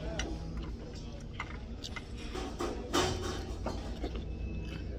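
Restaurant dining-room background hum with scattered light clicks of cutlery against plates, and one sharper clink about three seconds in.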